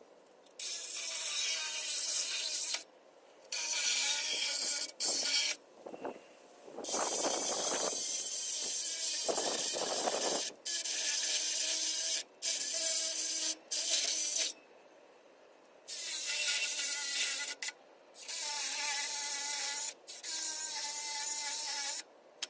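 Cordless angle grinder cutting metal in about ten runs of one to four seconds each, stopping and starting with short pauses between them.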